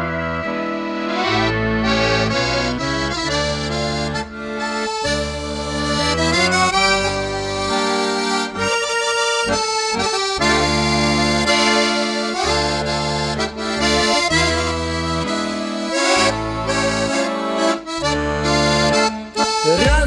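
Instrumental background music, with held chords over a bass line whose notes change every half second to a second.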